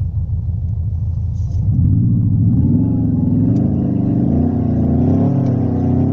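Simulated engine sound from Renault's R-Sound Effect, played through the car's cabin speakers: a low steady engine note that grows louder about two seconds in, then rises and falls in pitch several times as if the engine were being revved.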